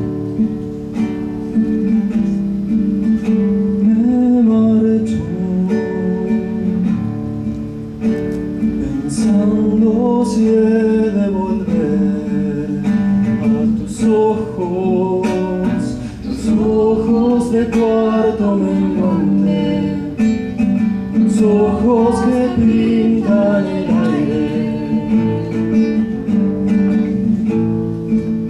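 Acoustic guitar playing a song's accompaniment, joined about four seconds in by a woman singing the melody.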